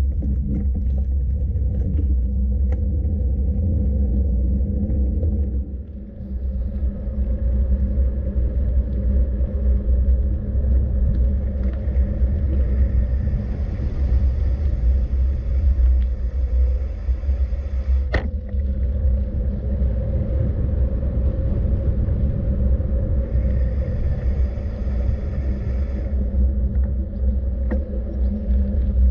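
Steady low rumble of vehicle and road noise on the move, with a higher hiss joining from about six seconds in and one sharp click about two-thirds of the way through.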